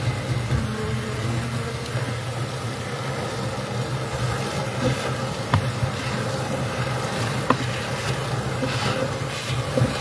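Bee vacuum's motor running steadily with a low hum, with a few sharp clicks about halfway through.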